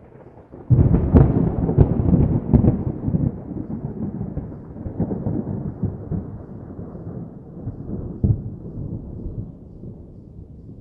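Thunder: a sudden clap about a second in, sharp cracks for the first two seconds, then a long rumble that slowly dies away. One more crack comes about eight seconds in.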